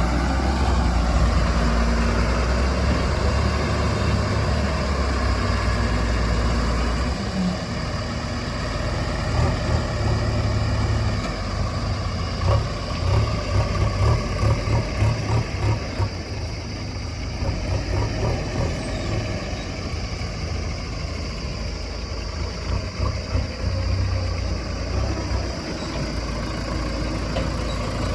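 Heavy diesel engine running steadily, with a stretch of rapid throbbing pulses in the middle.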